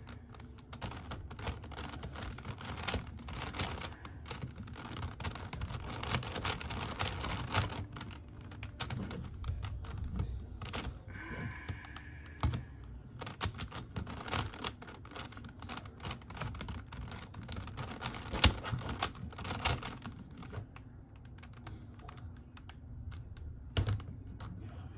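Stickerless plastic megaminx being turned quickly by hand: its faces click and clack in rapid runs with brief pauses.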